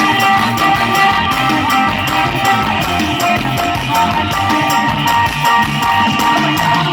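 Loud Isan-style band music from a rot hae sound-truck show: a plucked string lead played over a steady drum-kit beat, without singing.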